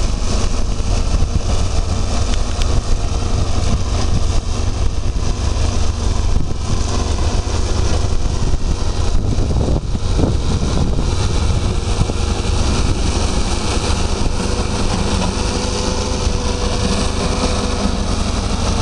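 Homemade mini tractor's engine running steadily under load as it pulls a two-row potato planter through tilled soil.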